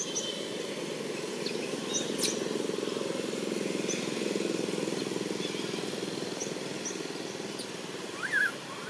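Engine of a passing motor vehicle: a steady low hum that swells in the middle and fades toward the end. Faint high chirps sound over it, and a short rising squeak comes near the end.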